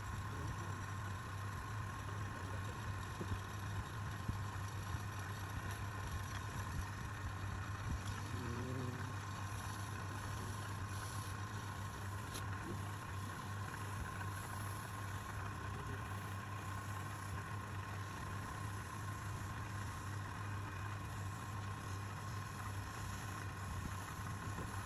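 Woodturning lathe running at a steady speed, its motor giving a constant low hum with a steady higher tone over it.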